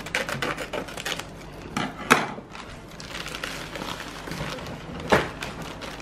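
Plastic cake-mix packet crinkling and rustling as the powder is shaken out into a mixing bowl, with two sharp knocks about two and five seconds in.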